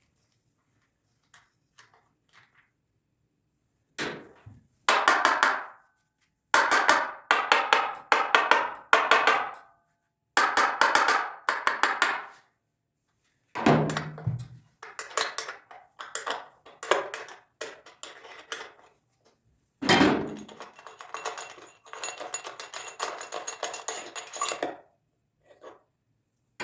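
Hand tools and metal parts being worked on a small gasoline generator's engine while its fuel system is checked: repeated bursts of rapid clicking and rattling, with a few separate knocks.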